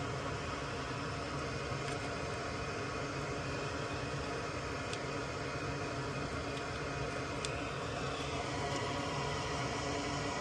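Small electric fan or blower running steadily with a humming whir, with a few faint light clicks.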